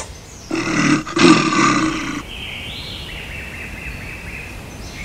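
Brown bears roaring: a harsh, rough roar about half a second in, broken briefly near the one-second mark, then running on to about two seconds. After it comes a fainter, steady, high-pitched hum.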